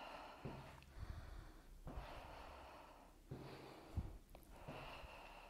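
A woman breathing hard and audibly during exercise, about four faint breaths, with a few soft thuds of her feet on the floor.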